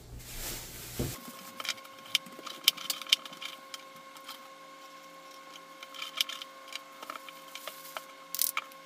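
Kitchen knife slicing a cucumber on a plate, sped up so the cuts come as quick, sharp, irregular clicks, over a faint steady hum.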